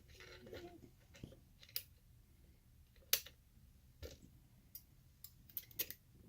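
Scattered small metallic clicks and taps as a lever lock and its picking tools are handled, with a few sharper clicks standing out.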